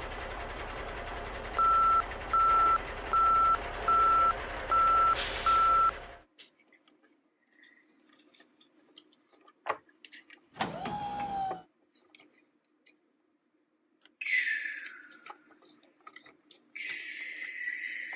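A battery-powered toy truck's electronic sound effect: a recorded engine running, with six evenly spaced reversing beeps over it. It cuts off suddenly about six seconds in.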